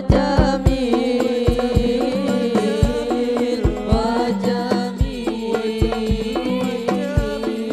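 Hadrah ensemble performing sholawat: voices singing an Islamic devotional song together over hand-struck rebana frame drums, with deep drum strokes about twice a second. Recorded straight from the sound system's mixer.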